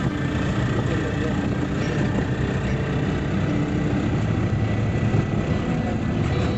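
Steady engine and road noise of a Tata Magic van on the move, heard from inside the cabin as a low, even drone.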